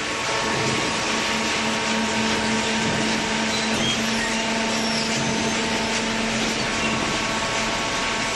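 Hydraulic paper baler's electric motor and hydraulic pump running steadily, a constant hum with a noisy hiss over it.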